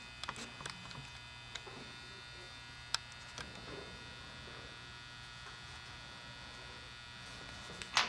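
Steady electrical hum with several thin tones, over a few faint clicks and taps as wire leads with crimped Anderson Powerpole metal contacts are handled on a bench. The sharpest click comes about three seconds in and another near the end.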